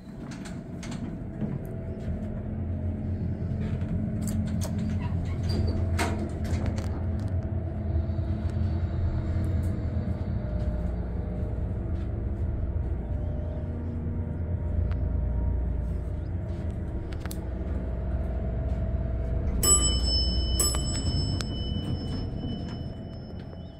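Elevator running on a ride up one floor: a steady low rumble from the car and its machinery, with a faint hum above it. Near the end a sharp click comes in, followed by a steady high tone as the car stops and the doors open.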